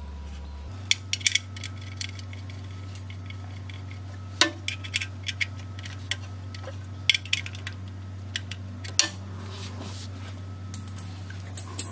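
Metal hand tools clinking: a socket and ratchet wrench handled under the truck, giving scattered sharp clinks in short clusters over a steady low hum.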